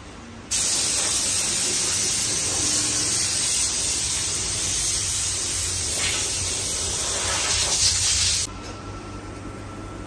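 A steady, loud hiss of a pressurised jet, starting abruptly about half a second in and cutting off sharply near the end, over a steady low hum.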